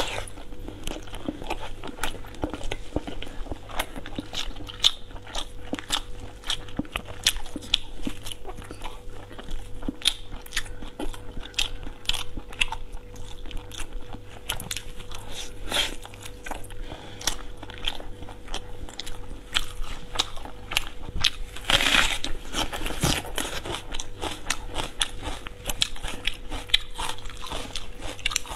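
Close-up eating sounds of a person biting into and chewing chunks of red-braised pork belly, with many short mouth clicks throughout. There is a louder stretch about three quarters of the way in.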